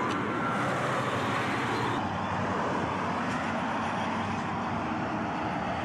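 Steady street traffic noise: an even rush of passing road vehicles.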